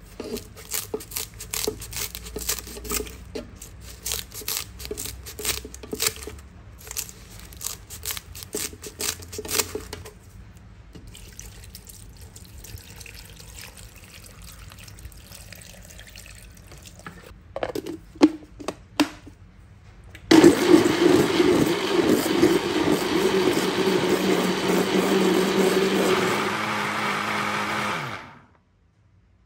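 Pieces of cut pandan leaf rustling and clicking as they drop into a plastic blender jug, water poured in, and a few knocks as the jug is set up. Then an electric blender runs loud and steady for about eight seconds, blending the pandan leaves and water into a juice, and cuts off suddenly.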